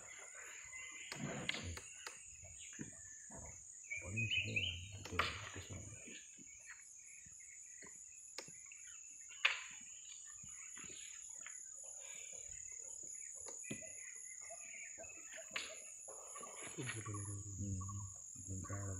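Steady high insect drone from the riverside forest, with bird calls chirping now and then. Low voices murmur and a few sharp knocks come through, the loudest about halfway.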